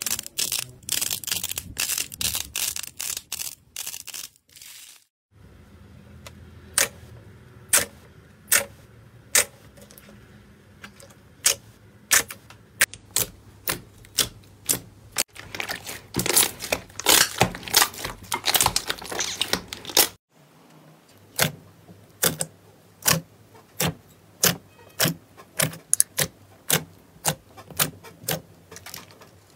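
Slime being pressed and worked by hand, giving crisp clicks and crackles: a dense crackling at first, then separate sharp pops about one a second, with a busier stretch in the middle.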